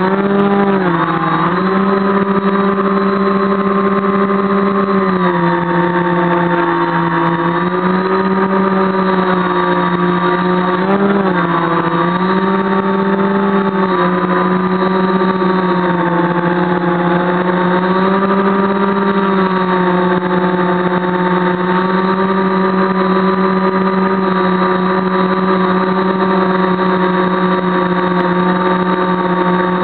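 Electric motors and 10-inch propellers of a quadcopter running in flight, heard loud from a camera mounted on the aircraft: a steady hum whose pitch dips briefly about a second in and again around eleven seconds in, then holds as it climbs.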